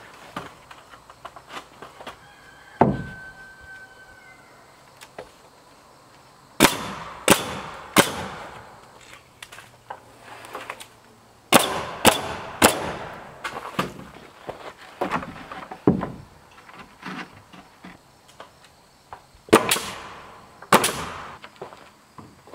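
Pneumatic coil nailer driving nails through rough-sawn siding boards: sharp shots in quick groups, three together about seven seconds in, three more about twelve seconds in and two near the end, with a lone thump and lighter knocks between.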